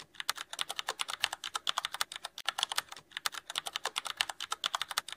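A rapid, irregular run of sharp clicks, about eight to ten a second, that starts and stops abruptly.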